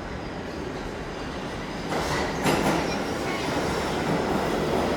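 New York City subway train pulling into an underground station, its rumble growing louder about two seconds in as it comes alongside the platform, with a sharp clack about half a second later.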